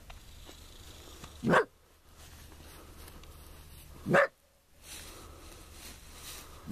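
A coyote caught in a trap barking at approaching people: single short, sharp barks, one about a second and a half in, another about four seconds in, and a third right at the end.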